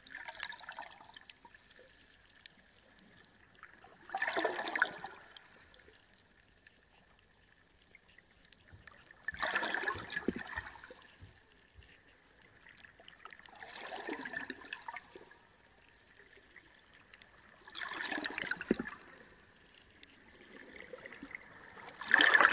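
Reef aquarium water gurgling and splashing in surges that come back about every four to five seconds, over a faint steady high-pitched tone.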